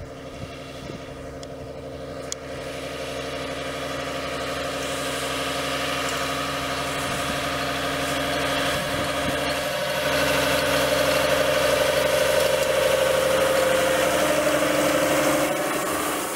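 Fiat 110-90 tractor's six-cylinder diesel engine running steadily, driving a Claas Liner 470 S rotary rake through hay. It grows louder over the first ten seconds as the tractor comes closer, then holds steady.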